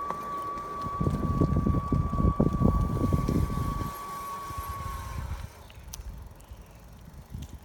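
Steady high-pitched whine from the front wheel of a new RadMini Step-Thru e-bike while riding, over gusty wind and road rumble. The whine stops about five seconds in, and the rumble eases around the same time.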